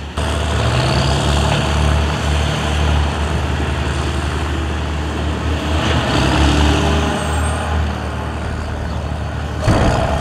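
Heavy diesel engine of a wheel loader running steadily with a deep drone, revving up about a second in. A sudden loud clatter comes near the end.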